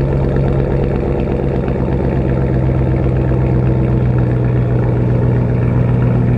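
2012 Ram 1500 pickup with its muffler deleted, idling steadily after a cold start, its exhaust note echoing off concrete walls.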